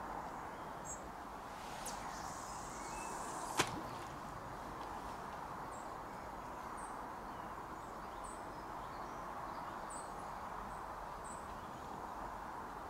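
A carp rod being cast: a whoosh, with line hissing off the reel spool for about a second and a half, ending in one sharp click. Then a faint steady outdoor background with scattered faint high ticks.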